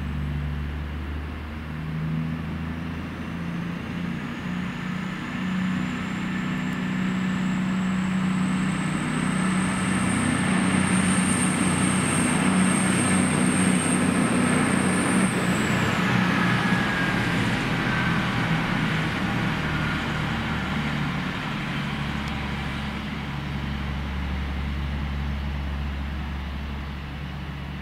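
Cross Country Voyager diesel-electric train going by, its underfloor diesel engines running with a high whine that slowly rises in pitch. The whine drops sharply about halfway through as the train passes, and the sound is loudest in the middle.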